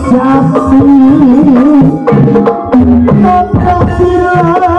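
Live Banyumasan gamelan music for an ebeg hobby-horse dance: kendang hand drum strokes drive the rhythm under metallophone notes, with a singer's wavering vocal line over the top.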